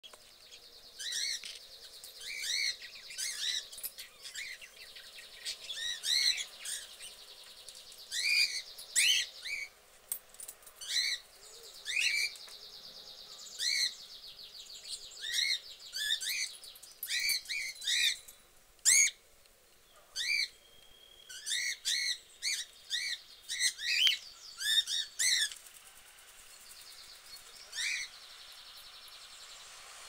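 Budgerigars chirping: many short, repeated chirps, often in quick runs, over a faint warbling chatter in the first half. There is one sharp click about two-thirds of the way through.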